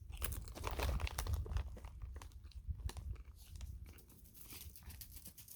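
Wavy potato chips being crunched and chewed close to the microphone: a quick run of crisp crunches that thins out toward the end.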